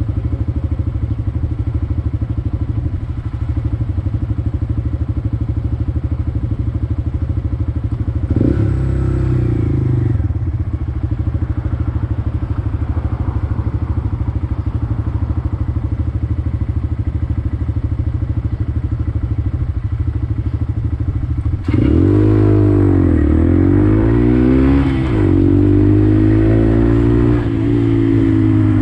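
Honda Grom's single-cylinder 125cc four-stroke engine running steadily at low revs, with a brief rise in revs about eight seconds in. About three-quarters of the way through it suddenly gets louder, and the revs climb and fall several times as the bike accelerates.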